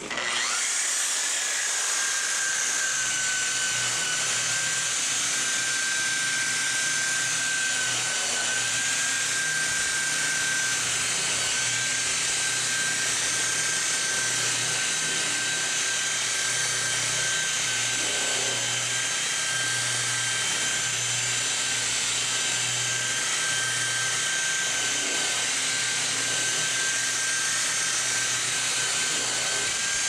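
Electric rotary polisher with a buffing pad running steadily against a painted sheet-metal panel, polishing off paint overspray. It comes up to speed at the start, its thin whine settling a little lower over the first couple of seconds, then holds an even pitch.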